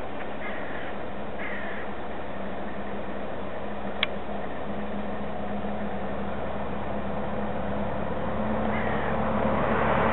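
Steady rumble of wind and a low engine-like hum, swelling towards the end, with a few faint bird calls and one sharp click about four seconds in.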